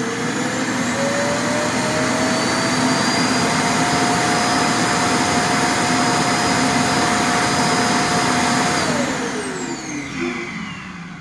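iRobot Clean Base's suction motor emptying the Roomba i7's dust bin: a loud rush of air with a whine that keeps rising in pitch for the first few seconds, runs steady, then falls away as the motor winds down about nine seconds in.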